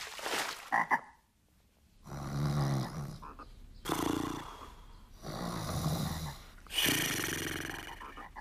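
A low, rasping, croak-like vocal sound, repeated about four times, each lasting about a second.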